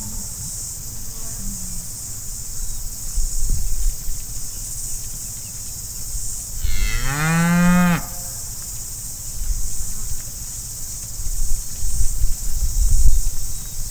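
A cow in a herd of black beef cattle moos once, a long call of about a second and a half, about seven seconds in, its pitch rising and then falling. Underneath there is a steady high hiss, and a low rumbling near the end.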